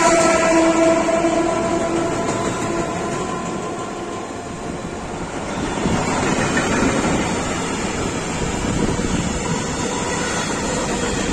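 Freight train wagons rolling past on the rails: a continuous rumble and clatter of wheels. A held tone fades away over the first two or three seconds, and the rumble swells again about six seconds in.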